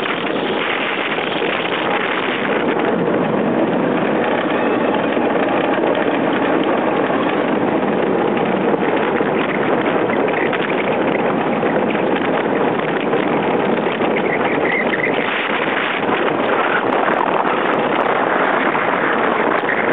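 Yankee-class iceboat running fast downwind on clear lake ice: a steady rushing hiss of the steel runners on the ice mixed with wind.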